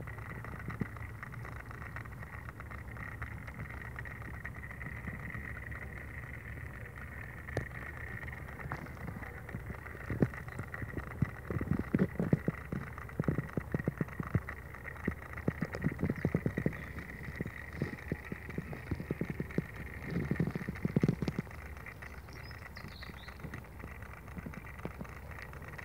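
Small electric motor of a rotating jewellery display turntable whirring steadily with a thin high whine, joined in the middle by bursts of irregular clicks and taps.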